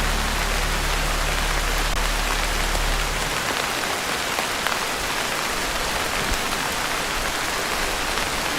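Heavy rain pattering steadily on a tin roof, a dense even hiss of drops. A low steady drone underneath stops about three seconds in.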